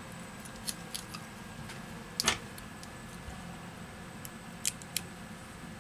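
Scattered small clicks and taps of metal tweezers and a smartphone display module's flex cable being handled, with one louder click about two seconds in and two more near the end, over a low steady hum.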